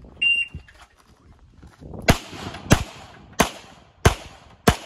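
An electronic shot timer gives one start beep of about half a second. About two seconds in, a Tanfoglio pistol fires five sharp shots at a steady pace of roughly one and a half shots a second.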